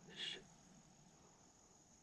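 Quiet woodland with a faint, steady high insect drone, and one brief high chirp about a quarter second in.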